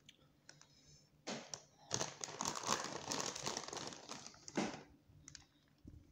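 Crinkling and rustling with light clicks as shredded cheddar cheese is handled and sprinkled onto stuffed potatoes on a baking sheet. It comes in spells after about a second of quiet and settles to a few clicks near the end.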